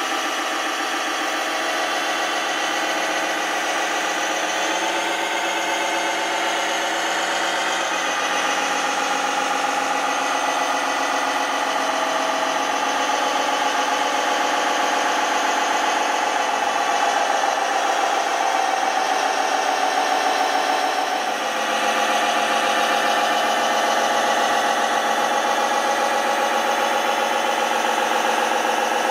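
Engine sound of radio-controlled construction truck models running steadily, with small shifts in pitch and a brief dip in loudness about three-quarters of the way through.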